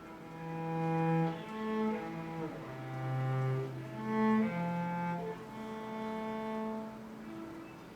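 A bowed cello playing a slow melodic phrase of held notes, with a downward slide between notes about two and a half seconds in.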